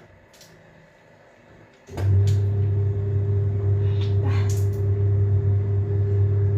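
A steady low electric hum, as of an appliance motor, switching on with a click about two seconds in and running evenly after that.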